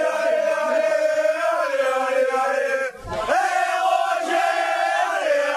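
Rugby supporters chanting together in long held sung notes, with a short break about three seconds in.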